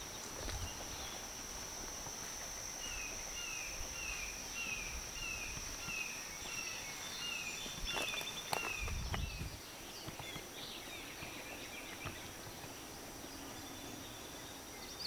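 Woodland ambience: an insect buzzing on one steady high note throughout, with a run of about a dozen short, evenly spaced falling chirps in the middle. Around eight to nine seconds in come a couple of sharp snaps and a brief low rumble.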